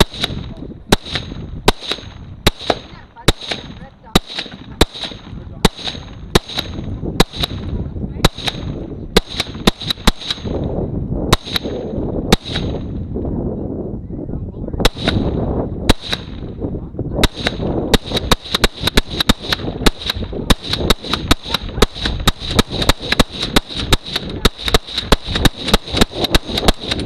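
A long series of gunshots at a steady pace, roughly one to two a second, quickening to about three a second in the second half.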